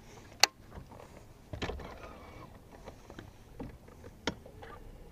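Handling noise of a baitcasting rod and reel in a boat: a loud sharp click about half a second in, a heavier knock a little after a second and a half, and another sharp click near the end, with smaller ticks between over faint water lapping at the hull.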